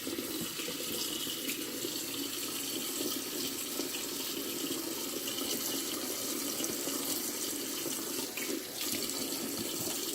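Tap water running steadily into a sink while hair is washed under it.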